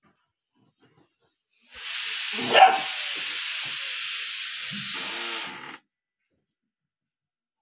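A steady hiss that starts about two seconds in and cuts off abruptly some four seconds later. Over it a playing puppy gives two short yaps, a louder one early in the hiss and a shorter one near its end.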